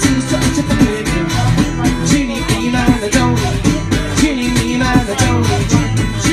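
Live music: a guitar played and strummed over a steady beat, with singing at times.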